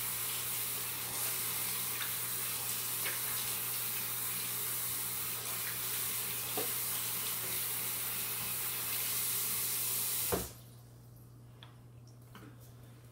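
Kitchen tap running in a steady hiss as slime is washed off hands, shut off abruptly about ten seconds in.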